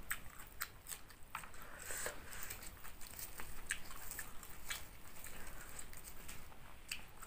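Thai basil leaves being plucked and snapped off their stems by hand, a scatter of small crisp clicks and crackles.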